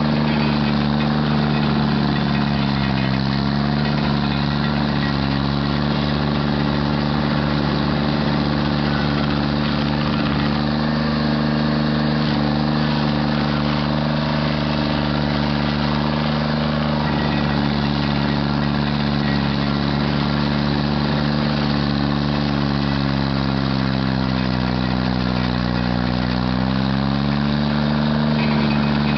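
Stump grinder engine running steadily. Its pitch sags briefly about three seconds in, and again for a few seconds near the end, before coming back up.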